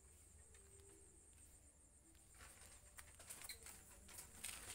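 Faint, irregular clicks and smacks of a dog eating from a bowl, starting about halfway through; the rest is near silence.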